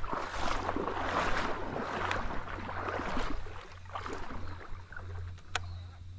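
Water splashing and sloshing at the edge of a shallow river for about three and a half seconds, then quieter, with a sharp click about five and a half seconds in.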